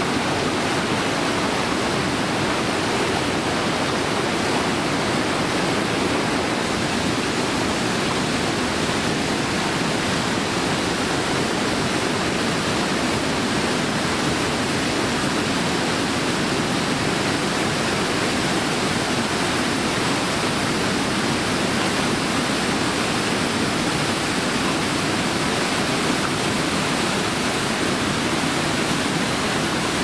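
Water rushing over a mill weir and down a rocky waterfall: a loud, steady rush of falling water.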